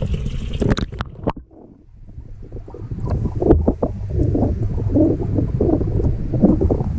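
Water heard through a camera submerged in a fish tub. There are a few sharp knocks as it goes in, then muffled, low gurgling and sloshing.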